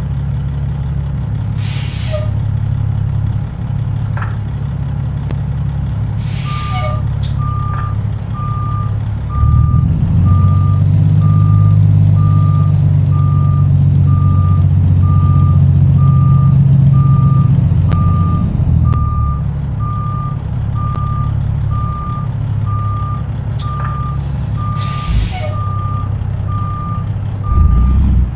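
Heavy diesel truck engine running low and steady, rising in revs and loudness from about ten seconds in for some eight seconds before settling back. From about six seconds in a reversing alarm beeps evenly, a little over once a second. Short bursts of air hiss, typical of truck air brakes, come three times.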